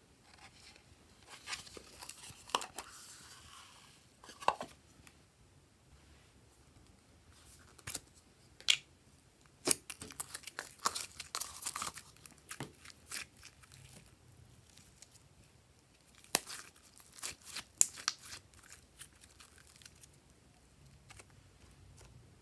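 Hands handling slime ingredients: clicks and crackles from plastic containers and foam beads, and sticky tearing as thick fluffy slime is pulled apart, in several short flurries.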